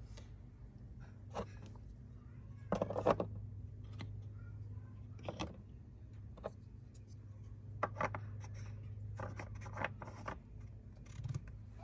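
Scattered light clicks, knocks and rubbing of hands working under a truck's hood: a plastic funnel being lifted out of the oil filler neck and a rubber hose being handled. A steady low hum sits under them.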